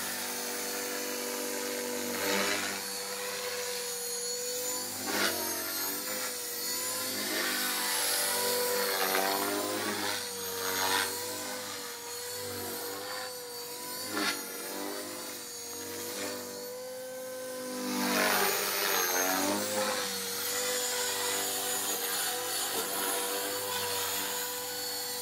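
Blade 450 electric RC helicopter in flight, its E-flite 3600 kV brushless motor and rotor giving a steady high whine. The pitch is held nearly constant by the ESC governor, wavering only slightly. Several louder rushes of noise swell and fade as it manoeuvres, the longest about three quarters of the way through.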